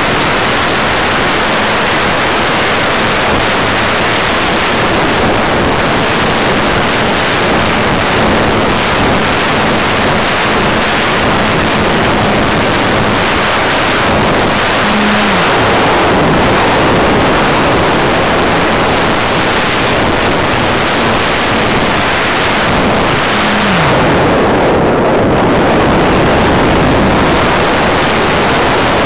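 Airflow rushing over the onboard camera's microphone on an electric Wot 4 RC plane in flight, a loud steady rush. Beneath it the faint hum of the motor drops in pitch about fifteen seconds in and again about twenty-three seconds in.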